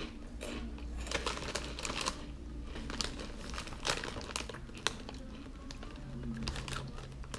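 Crunchy Cheetos snack bag crinkling and rustling in irregular crackles as a hand rummages inside it and draws out a single Cheeto.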